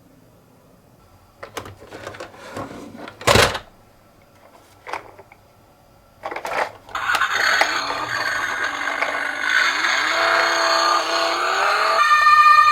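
Toy ambulance minicar: a few clicks and knocks as it is handled and set down, then a continuous, loud rolling whir as it runs down a slope, its pitch rising as it speeds up. A buzzy electronic siren tone starts near the end.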